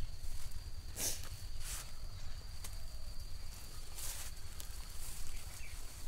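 Dry grass and fallen leaves rustling under a person's hands and feet as he shifts and steps, in a few short bursts about a second in and around four seconds, over a steady low rumble and a thin steady high tone.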